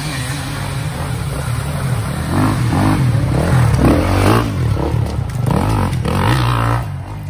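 Enduro motorcycle engine revving hard as a bike rides through a special test, its pitch repeatedly rising and dropping with throttle and gear changes, loudest around the middle.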